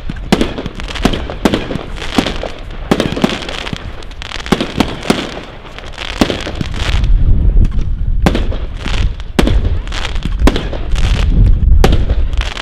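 Schorpioen consumer firework firing shot after shot, about one sharp crack a second, over the steady hiss of its spark fountains. A heavy low rumble builds in the second half.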